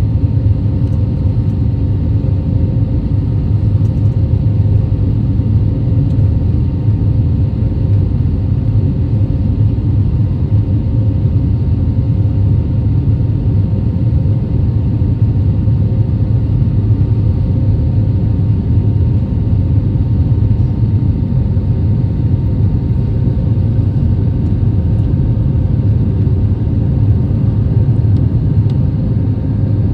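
Airbus A320neo in flight heard from inside the cabin: a steady, even rumble of engines and airflow, with faint constant hums above it.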